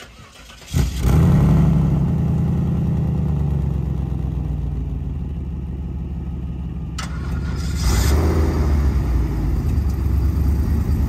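Twin Northstar V8 engines of a Mosler TwinStar Cadillac Eldorado starting up about a second in with a brief rev flare, then settling into a steady low idle. The sound grows louder again about seven to eight seconds in.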